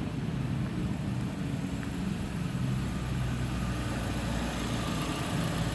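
A 2010 Hyundai i30's 2.0-litre petrol four-cylinder engine idling steadily on an engine test.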